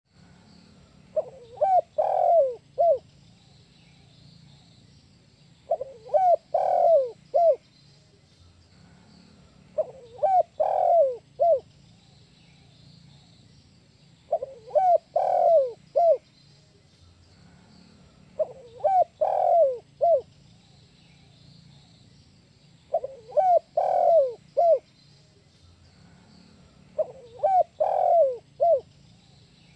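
Spotted dove (tekukur) cooing, the 'kuk 1' song type. Seven phrases about every four seconds, each a short run of coos ending in one separate note.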